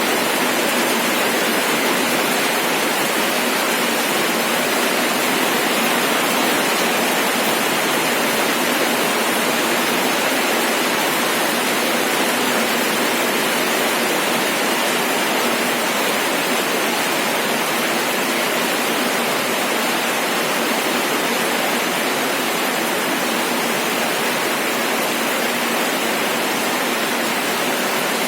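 Steady rain falling, an even unbroken hiss with no separate drops or other sounds standing out.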